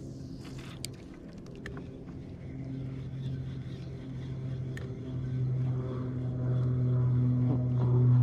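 An engine's steady, even-pitched drone growing gradually louder over several seconds.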